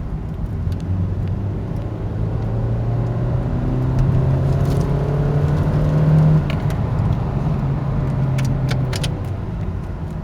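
2006 Kia Spectra's 2.0-litre Beta II four-cylinder, fitted with an equal-length header and downpipe, pulling under acceleration after a downshift, heard from inside the cabin. The engine note rises steadily for several seconds, drops suddenly about six seconds in, then holds before easing off near the end.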